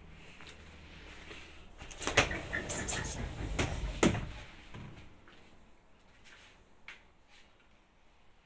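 A door being handled: a clatter of clicks and knocks lasting about two and a half seconds, sharpest about two seconds in and again near four seconds, followed by a few faint ticks.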